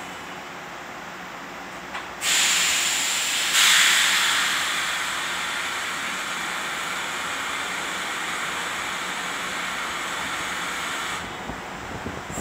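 Compressed air hissing from a standing Tobu 8000-series electric train's pneumatic system. It starts suddenly about two seconds in, jumps louder a second and a half later, then settles into a steady hiss that cuts off shortly before the end.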